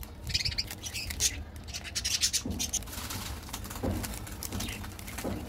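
Crinkly plastic wrapper of a KitKat bar rustling as it is handled and turned over in the hands, in quick irregular crackles.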